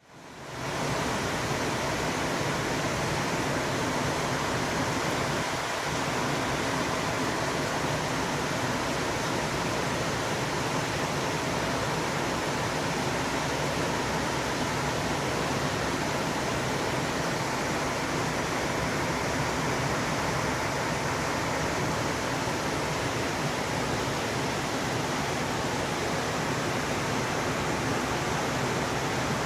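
Heavy rain pouring down: a steady, even rushing noise with no change in pitch.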